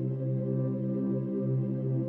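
Background music: slow ambient music of long, sustained tones at a steady level.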